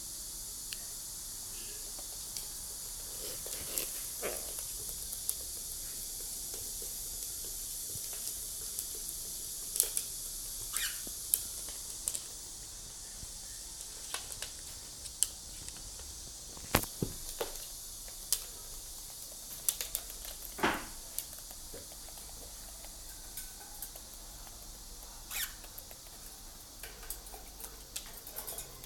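Scattered small clicks, taps and short squeaks from a pet parrot and puppy moving and playing, over a steady high hiss.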